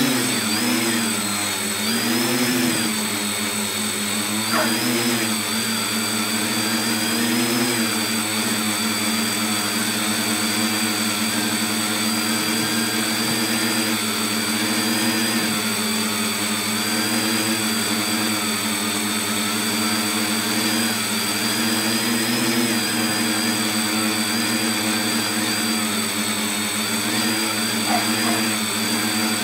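Tricopter's three electric motors and propellers running, heard from a phone mounted on the craft. The buzzing hum wavers up and down in pitch over the first several seconds as the throttle shifts, then holds steady, with a thin high whine above it.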